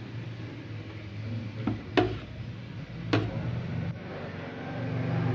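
Three sharp clinks of utensils on cookware, each with a short ring, over a steady low hum that grows louder near the end.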